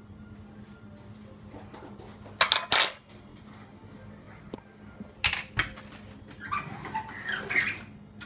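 Dishes and utensils clattering: sharp clinks about two and a half seconds in and again about five seconds in, over a low steady hum.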